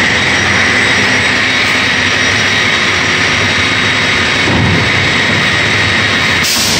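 Steady machinery noise from a cross-cut saw line running in a workshop, an even rushing sound with a constant high whine.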